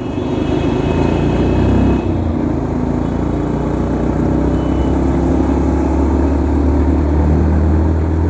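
Yamaha motorcycle engine running as the bike rides along at steady throttle, with road and wind noise; the drone dips and shifts briefly about two seconds in.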